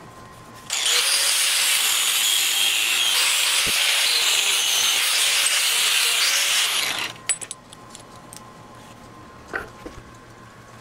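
Angle grinder cutting through mild steel pipe clamped in a vise: a steady, harsh grinding hiss that starts under a second in and stops about seven seconds in, followed by a few light clicks.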